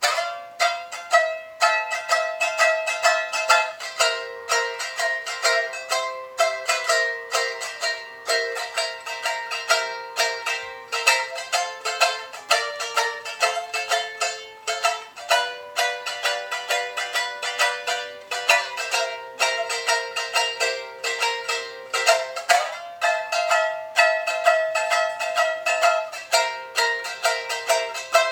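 Eight-string Tahitian ukulele in doubled G-C-E-A courses, strung with fishing line, strummed in a steady rhythm through a chord progression. The chord changes every few seconds. It has a very bright, ringing sound with no low notes.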